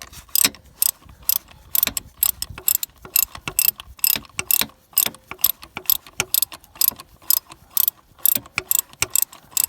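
Ratchet wrench with a 17 mm socket clicking in repeated strokes, two or three a second, as it backs off a starter motor retaining nut.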